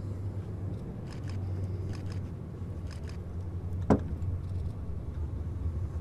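Military transport plane flying overhead, its engines giving a steady low drone. A single sharp click about four seconds in.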